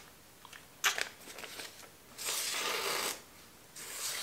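A freshly sharpened German steel knife blade slicing through thin magazine paper to test its edge: a short sharp slice about a second in, a longer hissing cut from about two to three seconds, and another starting near the end. The edge cuts the paper cleanly, a sign of a keen edge.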